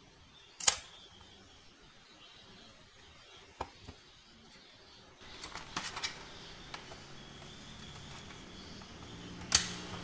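Sharp plastic clicks and snaps as a Lenovo ThinkPad X260 laptop is pressed back together by hand: its bottom cover pushed down and its removable battery pushed into its bay. There is a loud single click just under a second in, a lighter one in the first half, a quick run of clicks around the middle, and another loud click near the end.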